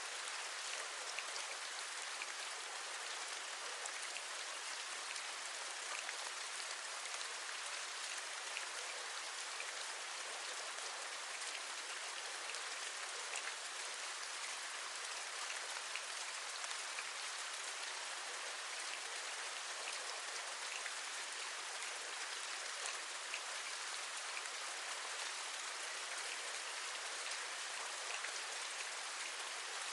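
Steady rain falling, an even hiss with many small scattered taps of individual raindrops.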